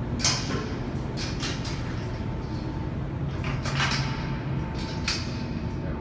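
Steady low mechanical hum in a concrete tunnel, with a handful of sharp knocks and clatters scattered through it, such as a door or metal fittings being handled.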